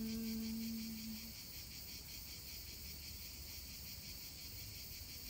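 The tail of a woman's long, held 'Om' hum on one steady pitch fades out about a second in. Insects keep up a steady, pulsing chirr throughout.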